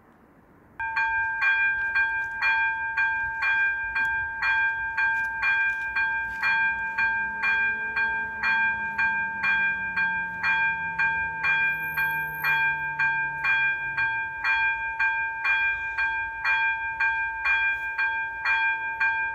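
Level-crossing warning bell (ZV-02) starting suddenly about a second in and ringing steadily, struck about twice a second: the crossing's warning is on because a train is approaching.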